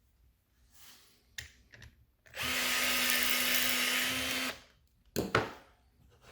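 Milwaukee M18 cordless electrical tool's motor running steadily for about two seconds, then stopping, followed by two sharp clicks.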